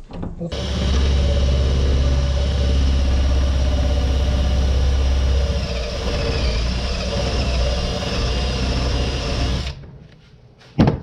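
Electric drill running under load as it bores the broken fiberglass handle out of a hatchet head's eye. It slows a little about halfway, then stops abruptly, and a sharp knock follows near the end.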